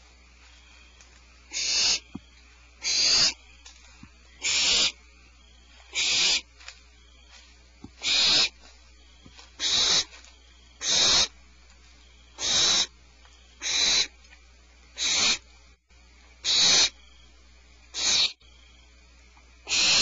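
Barn owl nestlings' rasping begging hiss, the "snore" call, given as short harsh bursts about every one and a half seconds, thirteen in all, over a faint steady hum.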